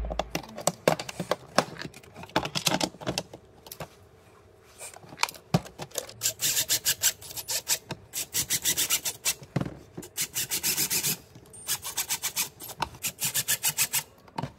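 Powered screwdriver driving screws through rubber feet into the bottom of a plastic junction box, in several runs of rapid, evenly spaced pulses with short pauses between.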